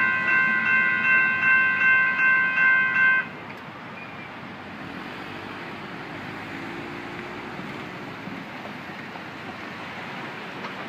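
Railroad crossing warning bell ringing in quick pulses, then cutting off suddenly about three seconds in as the gates start to rise. A steady hiss of background noise follows.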